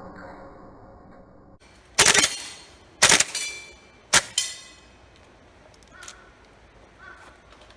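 VFC HK416A5 gas blowback airsoft rifle with an RA-Tech aluminium nozzle firing three single shots about a second apart. Each shot is a sharp crack followed at once by a second, quieter clack.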